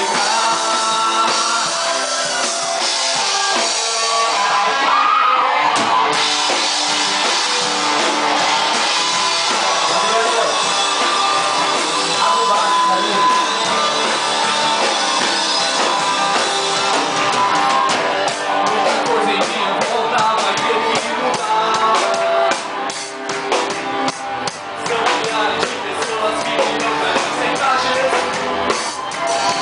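Live gospel band playing an upbeat song on guitars, keyboard and drums, with sharp beats growing more prominent about halfway through.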